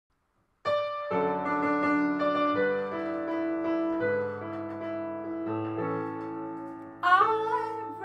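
Piano introduction of held chords that change about once a second, starting just after a short silence. A woman's singing voice comes in about seven seconds in.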